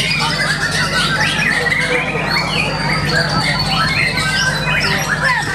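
White-rumped shama singing a dense, varied song of quick chirps and rising and falling whistled sweeps, with a long high note held for a couple of seconds in the middle. A steady low hum runs underneath.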